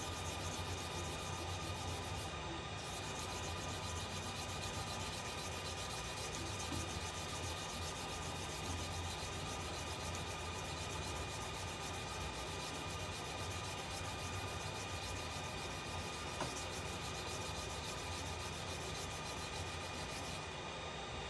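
Wet sanding the cracked epoxy coat of a pool cue turning on a wood lathe: sandpaper on a wooden block rubbing steadily against the cue, over a steady motor hum.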